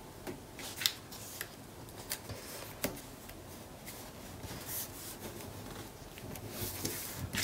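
Fingers pressing and rubbing a narrow strip of patterned paper into place on a cardstock page: soft paper rustling with a few sharp little taps, being repositioned because it sat a little low.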